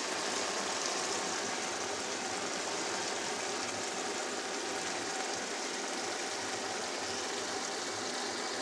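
Prawn curry in coconut milk bubbling and sizzling in a nonstick frying pan, a steady even hiss as the sauce simmers down near the end of cooking.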